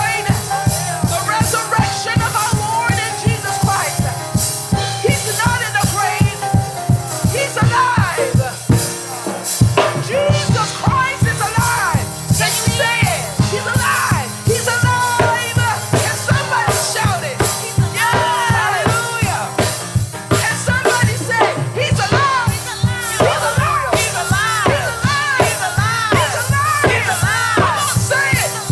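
Upbeat gospel praise music played by a live band, with a steady driving drum beat, bass and voices singing over it; the bass drops out briefly about a third of the way in.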